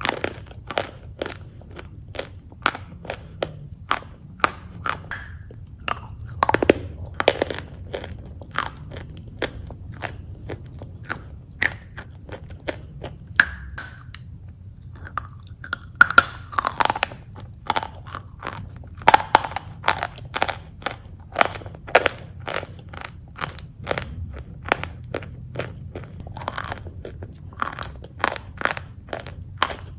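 Close-up crunchy eating: a person biting and chewing crisp food, with sharp crunches about twice a second.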